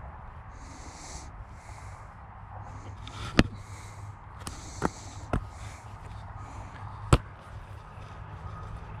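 Wind rumbling on the microphone with a hiss that comes and goes, broken by four sharp knocks, the loudest about three and a half seconds in and near seven seconds: a football slapping into hands and being handled.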